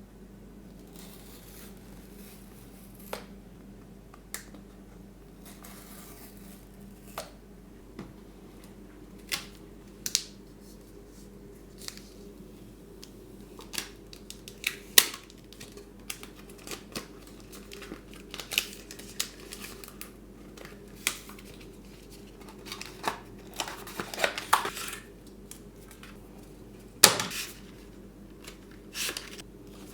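Hands opening a smartphone's retail box: packaging being torn and crinkled, with many scattered clicks and taps of the box and its parts being handled. They grow busier in the second half, with sharper knocks about 15 and 27 seconds in.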